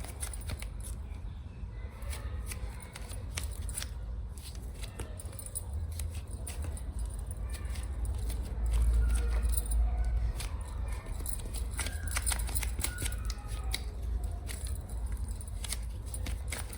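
Long fingernails tapping and clicking quickly and irregularly, with some scratching, over a low rumble that swells about nine seconds in.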